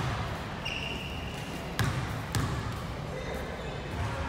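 Basketball bouncing on a gym court: sharp thuds at the start and twice about two seconds in, half a second apart, over steady hall noise, with a short high note about half a second in.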